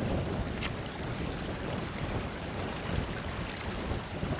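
Shallow river running over stones, with wind buffeting the microphone in a low, fluttering rumble.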